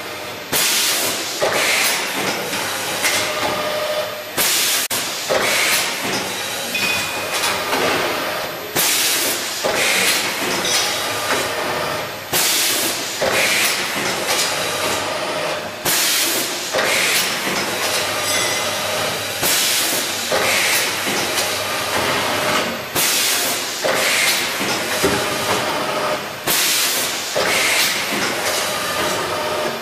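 Automatic screw assembly machine running through repeated cycles, with a short loud hiss of compressed air about every three and a half seconds and lighter mechanical clicks and whirs in between.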